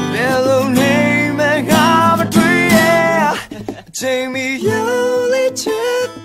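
A song: a man singing a melody over strummed acoustic guitar, with a brief break in the vocal a little past halfway.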